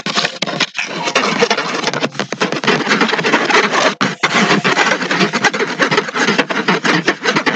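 Loud, continuous scraping and rubbing noise, dense with rapid crackles, cutting in suddenly at the start.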